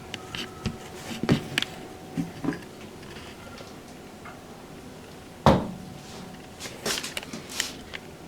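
A series of clicks and knocks, with one heavier thump about halfway through and a quick run of clicks after it, like something being handled and opened or closed in a small room.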